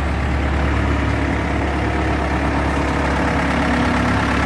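Mercedes-Benz 608 truck's diesel engine idling steadily.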